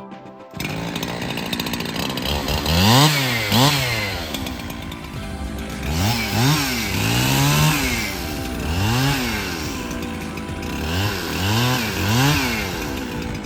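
Two-stroke chainsaw engine, cutting in abruptly and then revved up and down again and again, its pitch rising and falling with each pull of the throttle.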